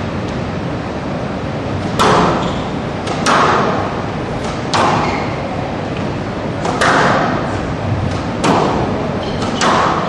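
A squash rally: the ball is struck by rackets and hits the court walls. There are six sharp cracks about one to two seconds apart, each echoing briefly, over a steady hall background.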